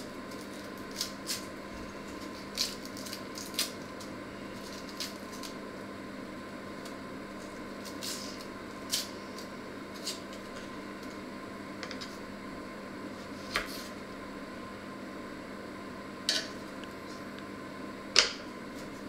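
A small kitchen knife clicks and taps against a wooden cutting board now and then as a bulb is peeled and cut by hand, about a dozen irregular light knocks, the sharpest near the end. A steady hum sits underneath.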